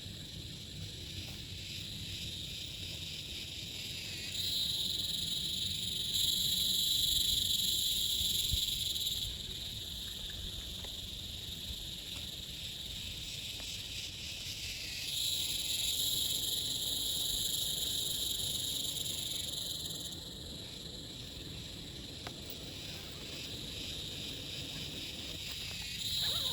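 Insects trilling in a high, steady chorus that swells loud for several seconds and fades back, about three times, over a low steady background hiss.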